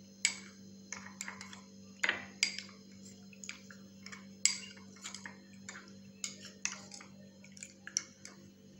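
A spoon stirring cornflour and water in a small glass bowl to make a slurry, clinking and scraping against the glass in quick, uneven ticks.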